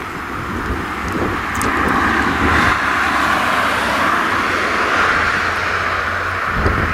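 Distant farm tractors hauling silage trailers across a field: a steady low engine drone under a rushing noise that grows louder about two seconds in.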